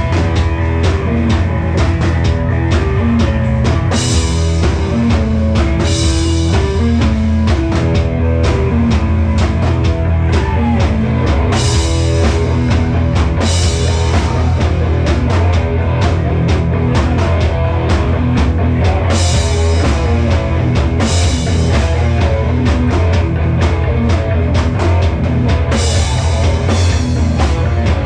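Live rock band playing loudly: electric guitars and a drum kit driving a steady beat, with cymbal crashes every few seconds.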